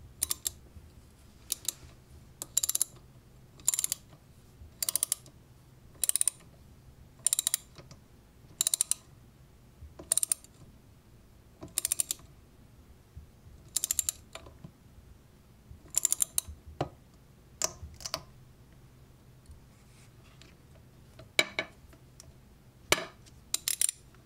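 A 5/8-inch ratcheting wrench clicking in short bursts, one swing every second or so, as it tightens the plastic nut on a toilet-seat bolt. The clicking stops for a few seconds after about 18 s, then a few louder bursts come near the end.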